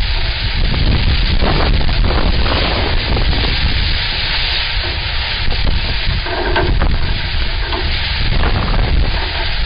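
Wildfire burning: a steady crackling hiss, with wind rumbling on the microphone.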